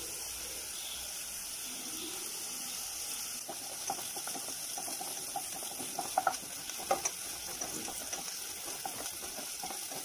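Chopped onion and green chilli frying in coconut oil with a steady sizzle. From about three and a half seconds in, a wooden spatula scrapes and knocks against the nonstick pot as it is stirred.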